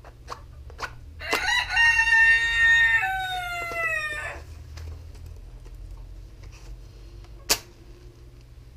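A rooster crowing once: a loud call of about three seconds that holds its pitch, then steps down and falls away. Near the end there is a single sharp click.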